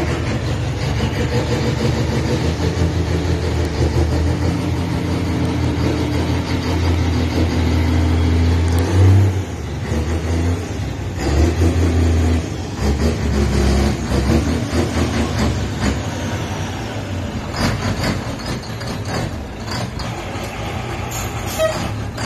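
Old dump truck's engine running and pulling away under load, its note rising and falling several times as it changes gear. A few sharp knocks near the end.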